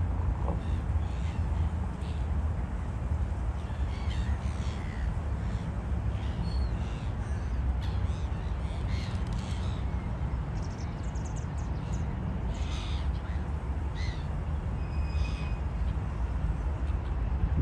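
A flock of gulls calling: many short, scattered cries over a steady low rumble.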